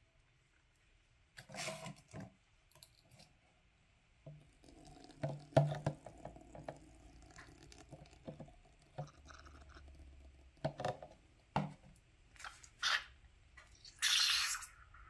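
Bench work on a Bilstein shock absorber being taken apart: scattered clicks and knocks as metal parts are handled, with squishing, dripping sounds of foamy shock oil. A short loud rushing burst comes near the end.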